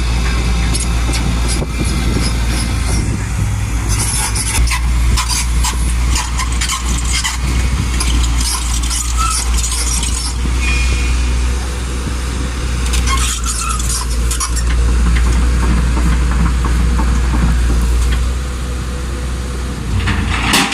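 Excavator's diesel engine running steadily under load, with scattered metallic clanks and rattles.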